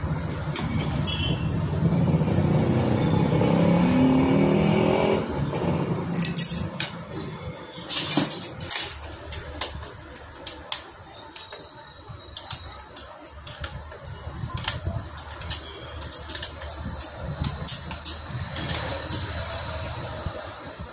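A vehicle engine runs with a rising pitch for about the first five seconds, then fades out. After that come repeated sharp metallic clicks and clinks of hand tools on the scooter's cylinder-head bolts and valve adjusters.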